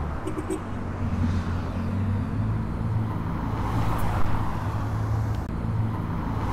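Road traffic going by, with a steady low engine hum.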